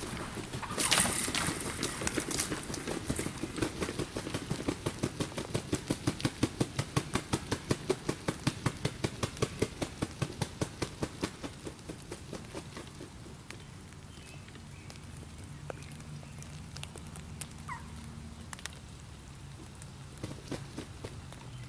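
Close footsteps crunching through brush and dry leaves about a second in, then a long run of rapid thumps, about five a second, that swells and then slowly dies away: the wings of a freshly shot wild turkey gobbler flopping on the ground.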